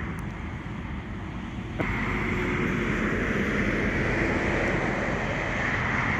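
Steady outdoor rush of wind and highway traffic with a faint hum under it, stepping up louder about two seconds in.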